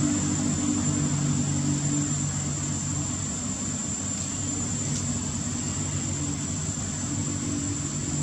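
Steady engine hum, like a motor vehicle running nearby, with a constant thin high-pitched tone above it.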